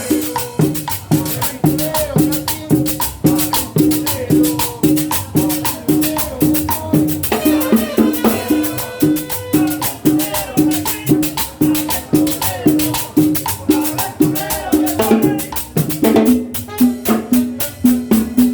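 Upbeat Latin dance music: shaker and hand percussion over a repeating bass note about twice a second.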